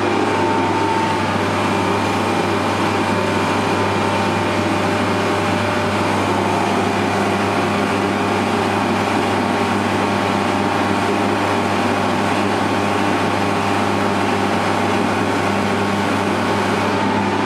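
Portable forced-air torpedo heater running with its burner lit: a steady fan-and-burner rush over a low, constant hum.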